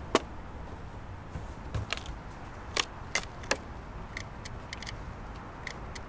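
Metal hive tool prying and tapping at a wooden beehive as it is opened: a series of sharp clicks and knocks, loudest about three and a half seconds in, then lighter ticks near the end.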